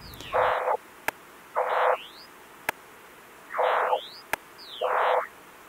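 Depth-vOICe sensory-substitution soundscapes: four left-to-right scans of a depth image, each a dense cluster of tones about two-thirds of a second long whose pitch spread traces a standing person. A raised arm is heard as a thin high tone that rises at the end of the first two scans and falls at the start of the last two, as the person switches arms. Sharp clicks fall between the scans.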